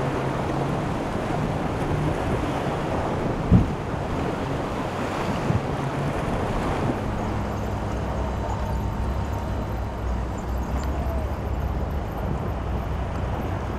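Waves and wind on the microphone, with the low drone of boat engines that steadies about halfway through. A sharp thump comes about three and a half seconds in.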